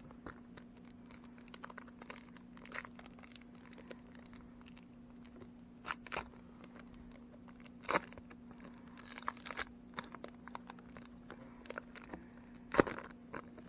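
Plastic wrapper of a baseball card pack crinkling and tearing as it is ripped open and the cards are worked out of it. It comes in scattered crackles, the loudest about a second before the end.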